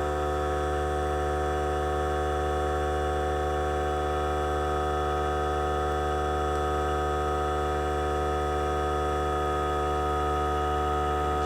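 The compressor of a desoldering tool running steadily: a constant, unbroken hum with no change in pitch.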